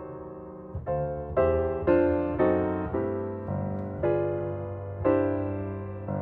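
Background piano music: slow chords and notes, each struck and then fading.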